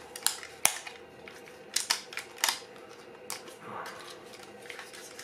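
Irregular small clicks and taps of a Horizon S3 Pro panoramic film camera being handled as 35mm film is threaded under its rollers and sprocket, with the sprocket moved by hand.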